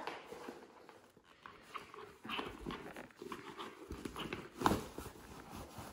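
Rolled clothing bundles being stuffed into a small faux-leather backpack: fabric rustling and the bag's flap and straps knocking and clicking, with one sharper knock a little before the end.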